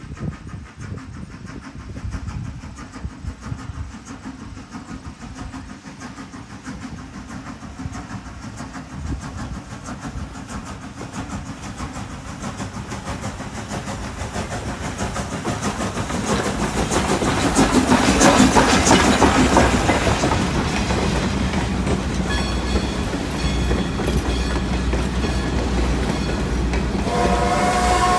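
Steam locomotive pulling a passenger train, growing louder as it approaches and passes about 18 seconds in. Its coaches then roll by with a clickety-clack of wheels over the rail joints. A whistle begins to sound near the end.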